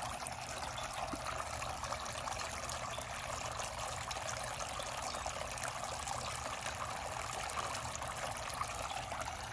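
Garden water fountain trickling and splashing steadily.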